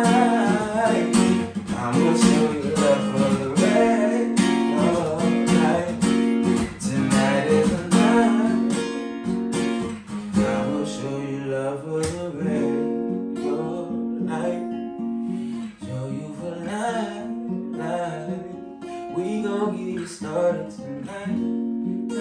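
Acoustic guitar strumming chords, played fuller and louder at first, then softer and sparser from about ten seconds in.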